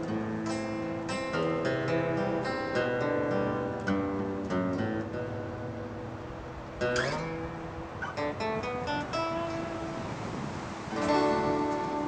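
Acoustic guitar being played: picked single notes and chords, with one note sliding up in pitch partway through and a fuller strummed chord near the end.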